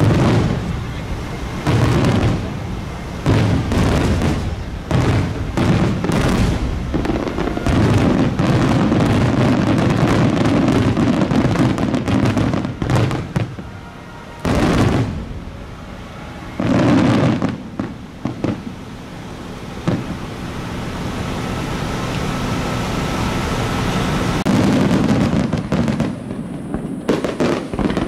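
Aerial fireworks shells bursting in quick succession, with deep booms that rumble on and overlap one another. Sharp crackling comes near the end.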